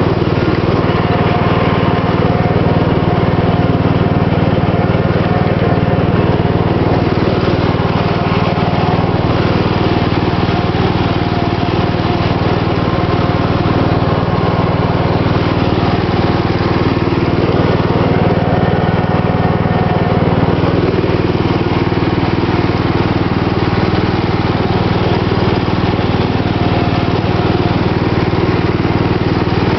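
Riding lawn mower's engine running steadily as the mower drives along, heard from the driver's seat.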